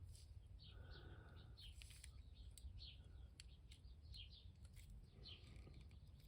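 Near silence: faint bird chirps in the background, short high notes repeating every second or so, over a low steady hum.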